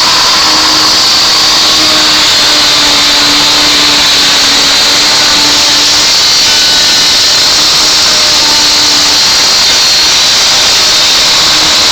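An electric power tool running steadily, loud and even.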